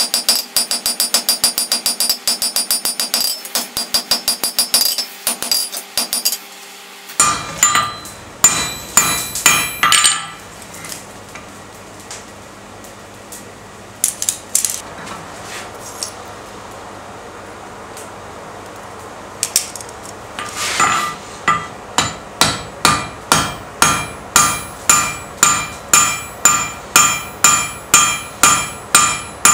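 Hammer forging a glowing steel bar on an anvil, each blow ringing off the anvil. A fast run of light blows gives way, about seven seconds in, to a few heavier ones, then a pause of about ten seconds with only a knock or two, and near the end a steady beat of about two blows a second.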